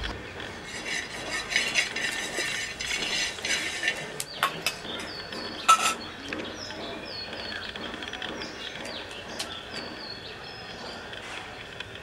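A few sharp metal clinks and taps on an iron tawa, the loudest about six seconds in, while small birds chirp over and over in the background.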